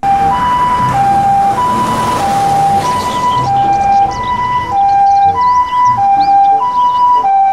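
Japanese ambulance's two-tone siren sounding its alternating high-low "pii-poo" call, each tone held a little over half a second, over the ambulance's engine and road noise.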